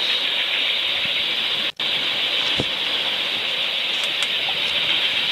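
Steady rushing hiss of wind and sea around a sailing catamaran underway, with a split-second cut-out about two seconds in.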